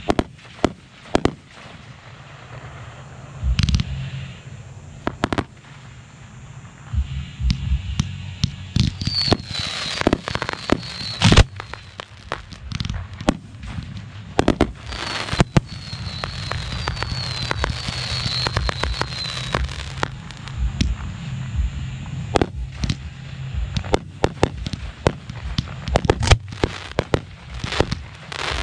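Professional 1.3G aerial firework shells being fired from mortar racks, heard from the firing line: a steady run of sharp bangs from shells lifting and bursting. About ten seconds in, and again from about fifteen to twenty seconds, a thicker hiss fills the gaps with short high chirps.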